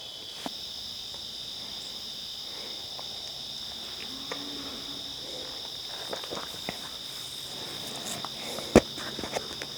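Loud evening chorus of crickets, a steady high trill that runs unbroken. There are a few faint rustles, and one sharp click near the end.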